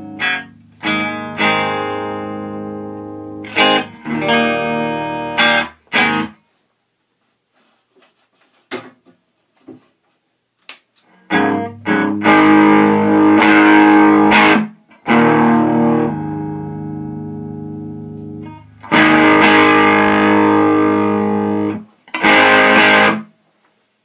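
Electric guitar played through a Randall amplifier with a DIY overdrive pedal in the signal chain. Strummed chords ring out, then a quiet stretch of a few faint notes, then louder sustained chords that are cut off abruptly near the end.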